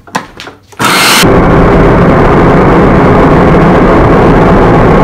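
An electric food processor switches on about a second in after a few light clicks and runs loudly and steadily, its shredding disc grating a cucumber pushed down the feed tube.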